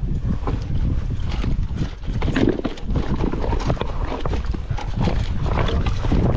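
Mountain bike rattling and knocking as it rides over a rough, stony trail, with a steady rumble of tyre and trail noise under a dense run of irregular knocks.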